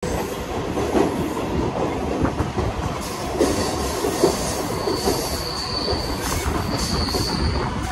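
Mumbai suburban local train (electric multiple unit) running on the track: a steady rumble with irregular knocks from the wheels. A high wheel squeal comes in twice in the second half.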